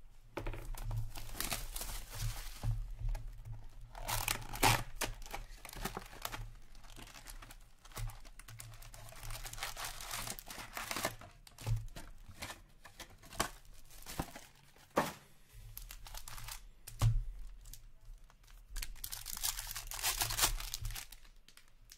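Foil hockey-card packs being torn open by hand, with wrappers crinkling in several spells and a few sharp taps and clicks in between.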